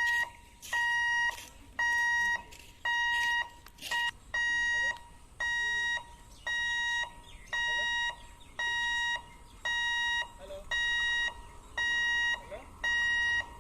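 Railway level crossing warning alarm beeping, a steady electronic tone repeating about once a second, which warns that a train is approaching.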